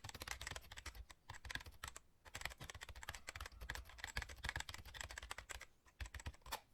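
Faint, rapid, irregular clicking and tapping, many small sharp clicks close together with short pauses.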